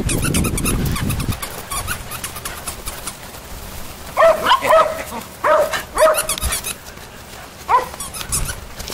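Puppies barking: a quick run of short, high-pitched barks starting about four seconds in, then one more bark near the end.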